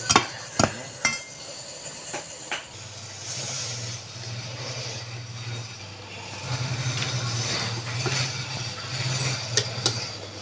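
A few sharp metallic clinks, then about three seconds in an electric motor of a woodworking machine starts a steady low hum with hiss above it, with a few more clinks near the end.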